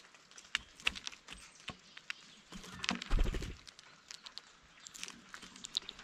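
Birds pecking and scrabbling at seed on a feeder: irregular sharp taps and clicks, with a low thump about three seconds in.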